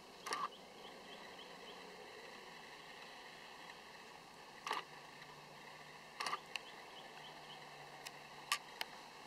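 A faint, steady chorus of insects chirping at dusk, broken by a handful of sharp clicks or snaps: one near the start, another a little before the midpoint, a cluster a second or so later, and three more near the end.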